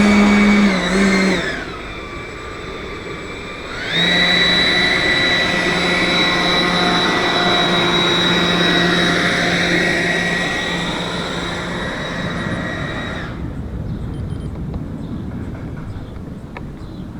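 Power unit of a 3D-printed radio-controlled L-39 model jet, running with a high whine. It surges briefly near the start and drops back, then spools up sharply about four seconds in. It holds a steady whine until it cuts off about four seconds before the end.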